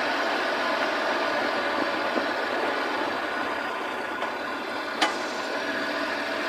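Kei truck's small engine running with steady tyre and road noise as it drives along, heard from down by the front wheel. One sharp click or knock about five seconds in.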